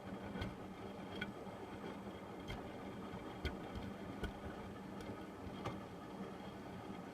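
Hotpoint washing machine turning its drum in the wash phase of a cotton cycle, before any spin: a steady motor hum with irregular sharp clicks and knocks, about seven in all.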